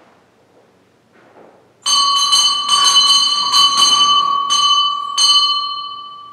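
A bell rung about eight times in quick, uneven strokes starting about two seconds in, its clear ringing tone then carrying on and fading away after the last stroke.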